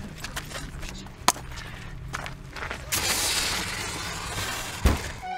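A few sharp clicks and knocks, then a handheld fire extinguisher discharging in a hissing rush for about two seconds, ending with a thud.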